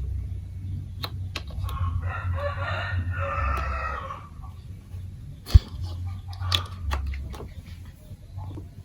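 Scattered sharp clicks and knocks of marbles and plastic marble-run blocks, over a steady low hum. About two seconds in, a rooster crows once for about two seconds.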